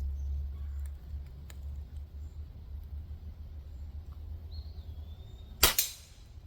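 A single sharp shot from a Hatsan AirTact QE .25 air rifle firing a 33-grain slug near the end, followed by a brief ring as the slug hits the steel target.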